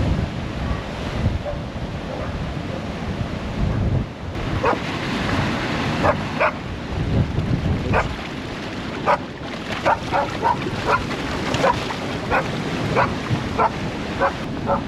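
Wind buffeting the microphone over rushing storm-surge floodwater, with a dog barking repeatedly from about four and a half seconds in.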